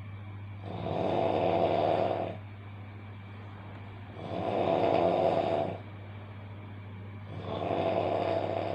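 A person snoring loudly: three long snores, one about every three and a half seconds, over a steady low hum.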